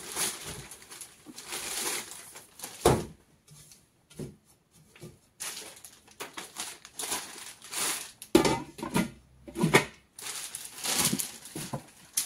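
Plastic wrapping and bag rustling as they are pulled off a casserole pot, with a few louder knocks from the pot and packaging being handled.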